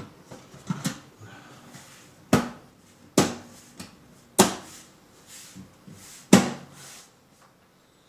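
Handling noise: four sharp knocks and clunks a second or two apart, each ringing briefly, with softer taps and rustling between them.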